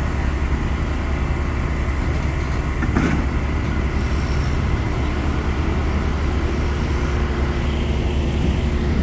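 Dirt-track race car's engine running steadily as the car is driven down the ramp out of an enclosed trailer, with a single knock about three seconds in.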